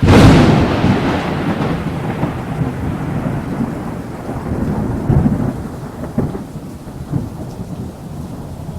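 Thunder: a sudden loud crack that rolls on into a long low rumble, swelling again a few times as it slowly fades, over a steady hiss of rain.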